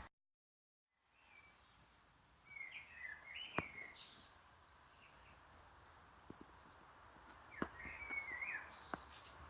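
Birds chirping faintly in the background in two short bursts of warbling song, over quiet room tone, with a few sharp clicks. The sound starts after a second of complete silence.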